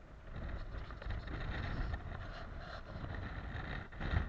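Wind buffeting a body-worn camera's microphone, with jacket fabric rubbing over it, a low rumbling noise that grows louder about half a second in and swells once more near the end.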